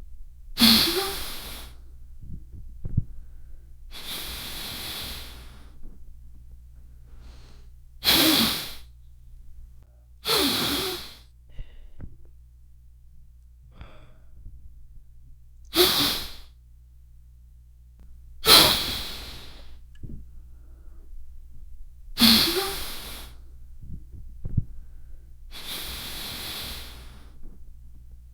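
A person forcefully blowing snot rockets out of the nose: eight wet, blasting nose blows, each starting sharply and dying away over about a second, a few seconds apart.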